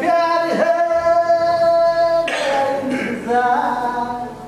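A solo singing voice holds one long, steady note for about two seconds, then sings a shorter phrase that bends in pitch.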